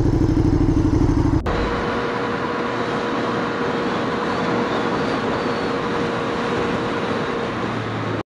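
A motorcycle engine running close up for about a second and a half, then a sudden change to the steady wind and road noise of a motorcycle riding along a street, with a faint steady whine.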